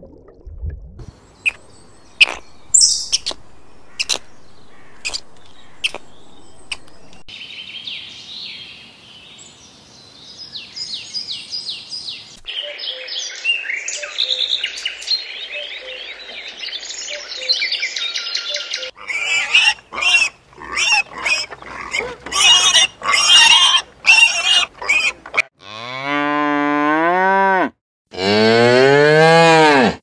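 Cattle mooing twice near the end, each moo a long call of about two seconds that rises and then falls in pitch. Before it come scattered clicks and stretches of high chirping and trilling calls.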